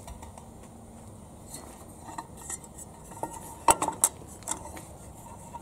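Light clinks and knocks of metal camping cookware, a mess tin and pot, being handled and set down, with the loudest pair of knocks about three and a half to four seconds in.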